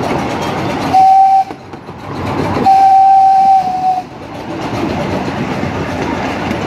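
Whistle of a miniature live-steam locomotive blowing one short blast and then one longer blast, each at a single steady pitch. Between and around them, the train's running rumble on the track.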